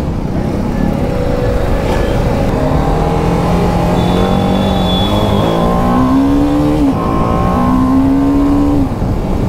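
Motorcycle engine under hard acceleration. It drones at a steady pitch, then revs up twice, each rise ending in a drop as it shifts up a gear near the end.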